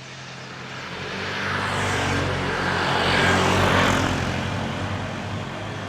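A motor vehicle passing on the road. It grows louder to a peak about three and a half seconds in, then fades away, with engine hum under the tyre and road noise.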